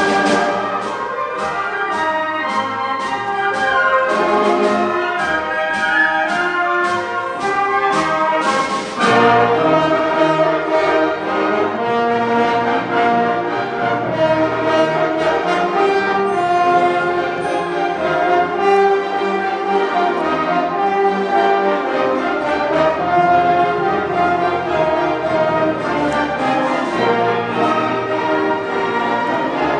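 Symphony orchestra playing live, brass to the fore. A steady beat of sharp percussive strokes, a little over two a second, runs for about nine seconds, then the full orchestra swells into louder held chords.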